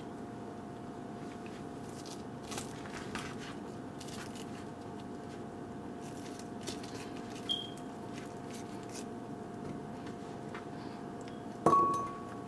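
Faint scrapes and soft clicks of a jackfruit being pulled apart by hand over a steady hum. Near the end comes one sharp knock that rings briefly.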